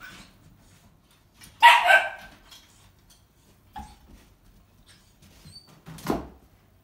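Akita puppy barking: one loud, high bark about a second and a half in, a short faint yip near four seconds, and another sharp sound near the end. The puppy is impatient for its food.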